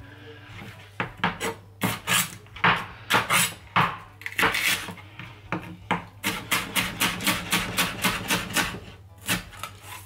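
Chef's knife chopping fresh red chillies on a plastic cutting board: separate knocks at first, then a quick even run of about five chops a second from about six seconds in.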